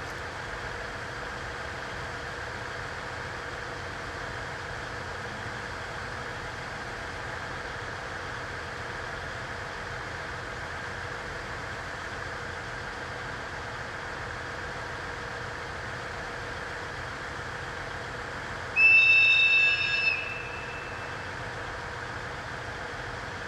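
An EF81 electric locomotive sounds one short, high-pitched blast of its whistle, about a second and a half long, near the end, over a steady hum as the train draws slowly in.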